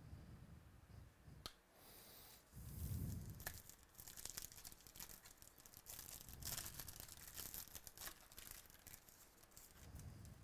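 A metallic foil trading-card pack wrapper being torn open and crinkled by hand, with irregular crackling. About three seconds in there is a dull handling thump.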